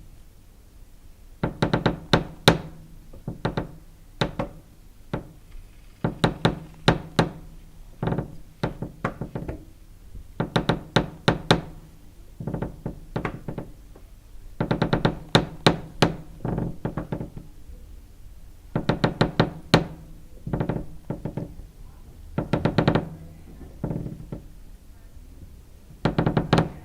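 Wooden floorboards creaking under shifting weight: a long series of drawn-out creaks, each a rapid run of ticks with a low groaning pitch. They come at irregular intervals with short pauses between them.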